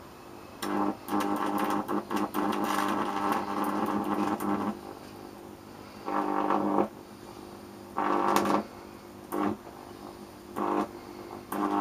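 A high-voltage arc burning into a neon test screwdriver, buzzing on one steady pitch. It comes in spells that start and stop suddenly as the arc strikes and breaks: one long spell of about four seconds, then several shorter ones.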